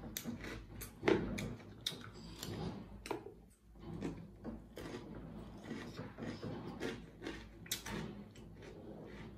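Close-miked eating of dry rusk crumbs (Turkish galeta) picked by hand from a plastic tub: irregular sharp crunching and crackling, with a short lull about three and a half seconds in.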